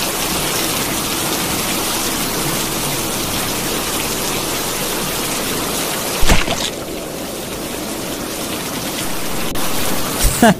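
Steady rain, with a single heavy thud about six seconds in as a person falls onto muddy ground. The rain sounds lower for a few seconds after the thud.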